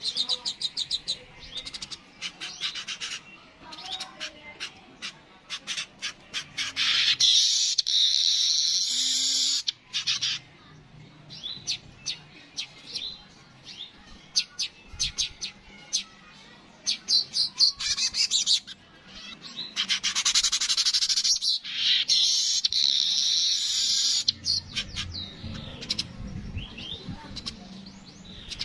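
Yellow-headed manyar (weaver) singing: runs of rapid, dry ticking chirps that build twice into a long, loud wheezy buzz, about 7 seconds in and again about 20 seconds in.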